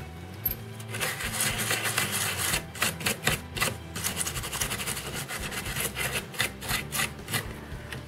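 A toothbrush scrubbing alcohol over the solder pads of a laptop motherboard, cleaning the DC jack area: quick back-and-forth scratchy strokes, a few a second, starting about a second in and stopping just before the end.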